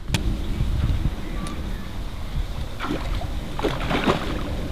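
Low wind rumble on the microphone, with water splashing and streaming around a landing net as it is lifted out of the lake with a fish in it, about three to four seconds in.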